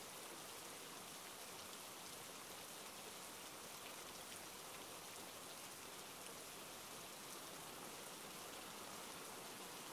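Steady, fairly faint rain falling, an even hiss of raindrops with no thunder.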